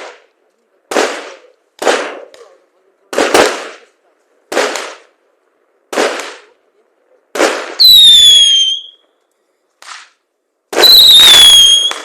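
Fireworks battery firing: a string of sharp bangs about a second apart, then, about eight and eleven seconds in, longer whistling shots whose shriek falls in pitch.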